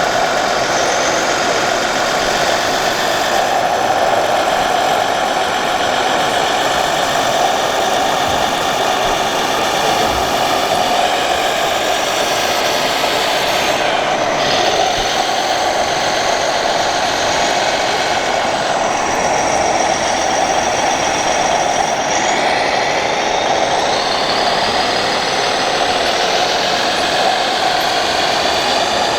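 Scale 1:14 RC trucks running with steady truck-engine sound from their sound modules, with thin high whines rising and falling now and then.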